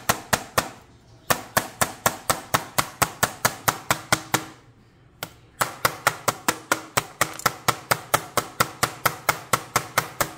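Spiked metal meat tenderizer mallet pounding raw chicken breast on a plastic cutting board. The strikes come fast, about five a second, in runs broken by short pauses about a second in and about five seconds in.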